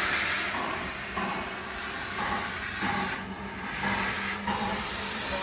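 Steam locomotive hissing with escaping steam, a steady noisy hiss that eases briefly twice and comes back.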